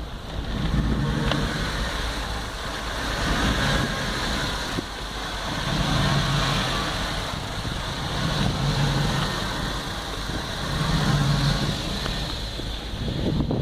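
GM 5.3-litre V8 idling warm with a rhythmic surge: the engine note swells and falls back about every two and a half seconds. The engine also has a misfire that developed after sitting for a couple of weeks.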